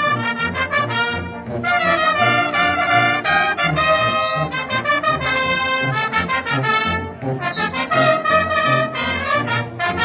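Bersaglieri fanfare, an all-brass military band, playing: a bright massed trumpet and flugelhorn melody over lower brass, with a regular pulsing beat.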